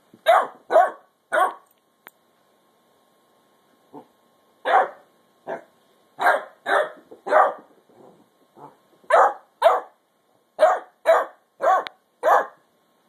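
A ten-week-old basset hound puppy barking: about fourteen short barks in bunches of two to four, with pauses between. She is demand-barking for the older dog's chew bone.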